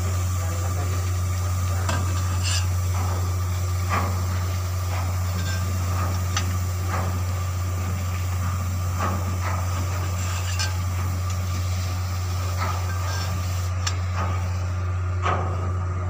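Irregular metal clinks and taps, about a dozen spread a second or two apart, as steel tools and bolts strike a bulldozer's bolt-on sprocket segments being fitted to the final drive hub. A steady low machine hum runs underneath.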